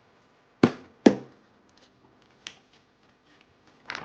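Two sharp taps about half a second apart, a lighter tick, then a short run of clatter near the end: the wall connector's box contents being handled.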